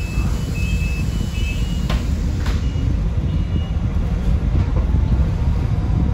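Sunwin SWB6127EV electric bus on the move: a steady low rumble of the bus running on the road. Short high beeps sound in the first second and a half, two sharp clicks come about half a second apart some two seconds in, and a faint electric motor whine rises near the end.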